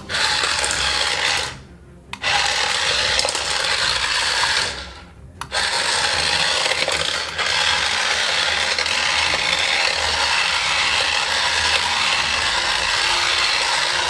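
Small electric motor and plastic gears of a remote-control toy pram pod whirring as it drives across a tile floor. The whir cuts out briefly twice in the first few seconds, then runs on steadily.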